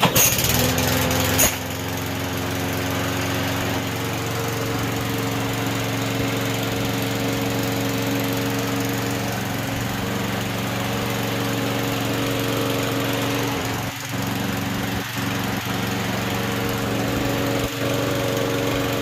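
Freshly overhauled petrol four-stroke rotary lawn mower engine starting: a loud burst for about a second and a half, then it settles into a steady run. It dips briefly a few times near the end.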